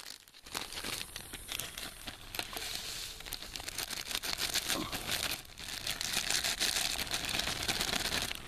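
Clear plastic zip-top bag crinkling as it is handled and shaken to empty bouillon powder into a pot of water, pausing briefly about five seconds in.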